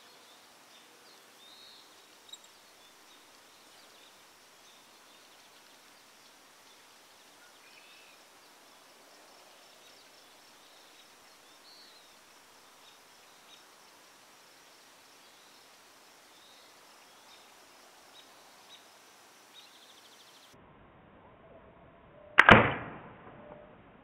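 A PSE Evo NXT 33 compound bow is shot once about 22 seconds in: a sharp, loud crack of the string release that rings out over about a second. Before it there is only a faint outdoor background with occasional bird chirps.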